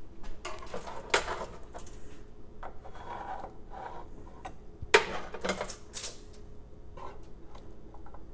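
Metal kitchen tongs clacking and scraping on a foil-lined sheet pan and a wooden cutting board as racks of baby back ribs are lifted across and set down. There are a few sharp knocks among the scraping, the loudest about five seconds in.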